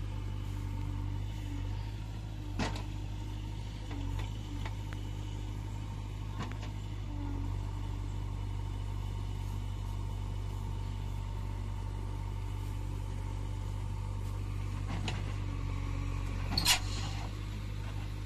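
Heavy diesel engine running steadily as a JCB backhoe loader pushes a loaded tractor trolley stuck in mud, with a few short metal knocks. The loudest knock comes near the end.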